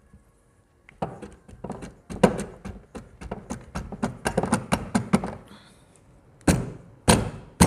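Crankshaft of a TVS Metro engine being tapped down by hand into its bearing seat in the aluminium crankcase: a quick run of sharp knocks, about four a second, then three heavier thumps near the end as it seats.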